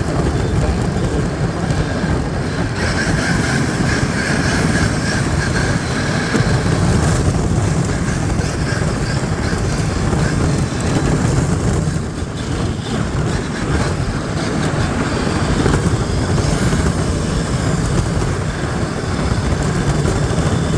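A sled being towed across ice and snow by a Traxxas X-Maxx electric RC truck gives a loud, steady, rough rumble. A thin whine rises above it for a few seconds near the start.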